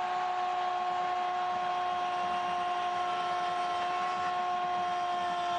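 A Brazilian television commentator's drawn-out goal shout, one long note held steady and dipping slightly near the end, over stadium crowd noise as a goal is scored.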